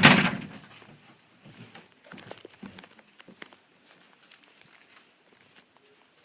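A single loud thump right at the start, dying away within about a second, followed by faint scattered clicks and rustling.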